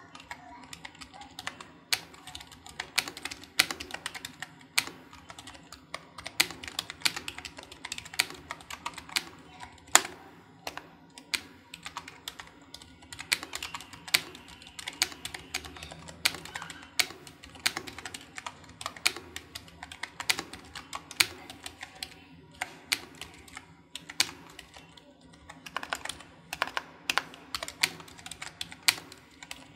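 Typing on a membrane keyboard fitted with foam sound dampener and greased with dielectric grease: a steady run of irregular key clicks, with a brief pause about 24 seconds in.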